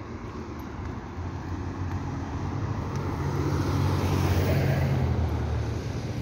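Car road and engine noise while driving through city streets, a steady low rumble that swells louder about four seconds in and eases off near the end.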